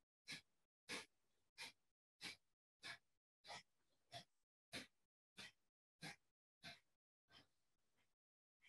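Kapalabhati breathing: short, sharp exhalations forced out through the nose, about three every two seconds in an even rhythm, the last one fainter before they stop near the end.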